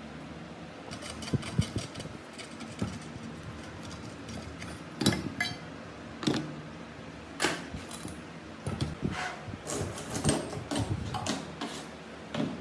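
Loose metal parts of a dismantled metal cutter clinking and clattering as they are handled and set down on a workbench, in scattered knocks that come thickest near the end.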